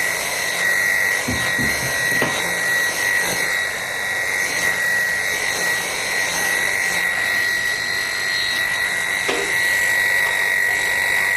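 Wahl KM2 electric grooming clipper running steadily as it cuts through a dog's coat, with a constant high whine.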